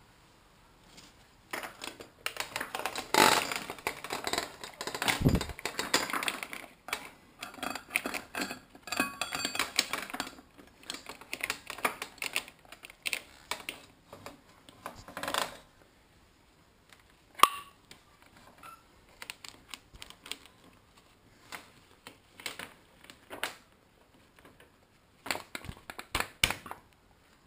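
Metal parts and tools clinking and rattling in irregular bursts during motorcycle chain work, with a low thud about five seconds in and one sharp metallic clank near the middle.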